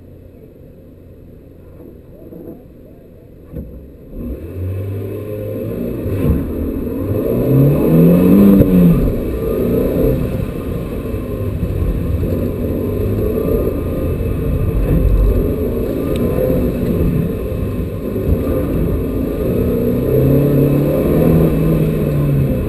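Renault Twingo Gordini's four-cylinder engine heard from inside the cabin, running quietly at first. About four seconds in it launches hard and revs up, its pitch rising and falling as the driver shifts gears and goes on and off the throttle.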